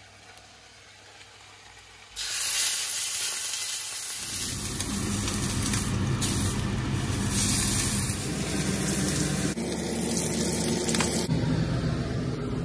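Rack of lamb searing in a hot stainless steel frying pan: a loud fat sizzle that starts suddenly about two seconds in, with a steady low hum underneath from about four seconds on.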